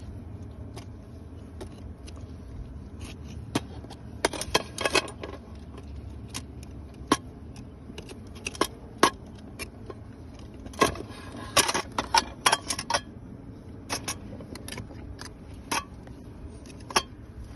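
A metal knife cutting and scraping wild honeycomb from rock and knocking against a metal pot, making sharp metallic clicks and scrapes. These come in two busy clusters, about four seconds in and again around eleven seconds, over steady low background noise.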